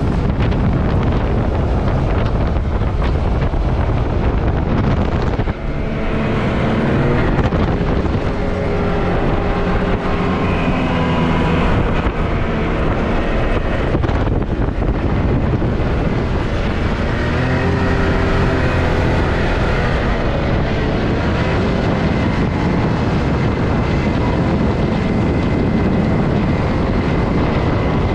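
Can-Am Maverick X3 side-by-side's turbocharged three-cylinder engine running under load, revs rising and falling again and again, with wind buffeting the microphone. The level dips briefly about five seconds in.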